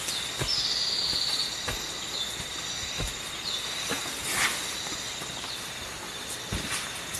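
Insects trilling in a steady high drone, with scattered clicks and knocks.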